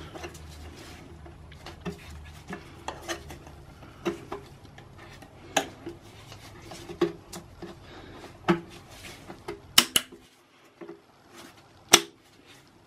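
Plastic crankcase breather hose being handled and pushed onto its fitting at a BMW N52 breather block: rubbing and scraping with scattered sharp plastic clicks and knocks, the loudest a quick pair about ten seconds in and a single one near the end.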